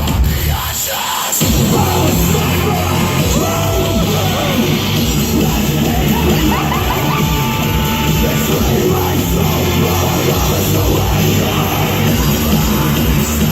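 Loud rock music, heavy-metal in style, with a steady pounding bass. The bass drops out for about a second near the start, then comes back.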